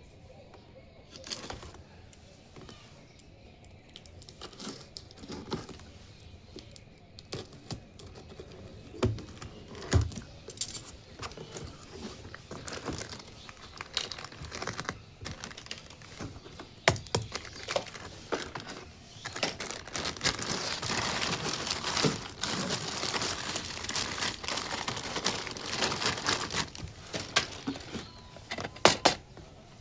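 Hand unboxing of a plastic toy kitchen set: scattered small plastic clicks and taps, then from about two-thirds of the way in a denser, continuous crinkling of plastic packaging.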